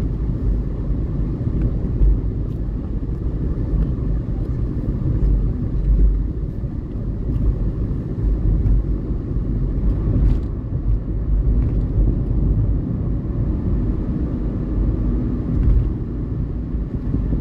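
Steady low rumble of a car driving on a city street, engine and tyre noise heard from inside the cabin.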